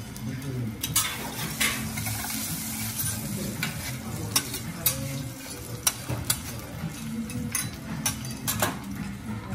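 Food sizzling on a steel teppanyaki griddle while a knife and carving fork scrape and tap against the hot plate, giving about a dozen sharp metallic clicks over the steady frying hiss.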